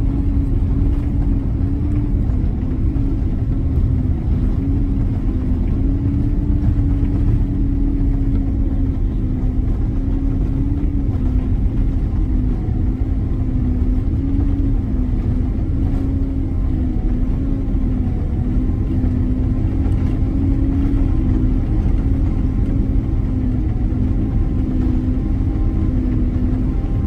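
Cabin noise of a Boeing 767-300ER on its landing rollout, spoilers raised: a steady low rumble of wheels and rushing air with an engine hum that wavers slightly in pitch.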